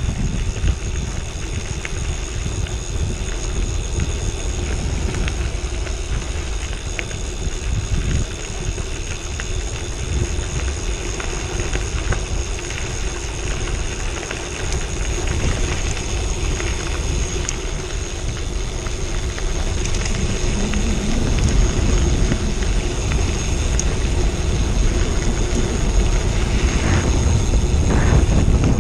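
Bicycle riding on a gravel road: wind rushing over a handlebar-mounted camera's microphone, with tyres rumbling and crackling on the loose gravel. It grows a little louder over the last several seconds.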